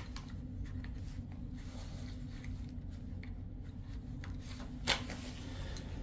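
Faint handling sounds of gear being picked up and moved, over a steady low hum, with one sharper click about five seconds in.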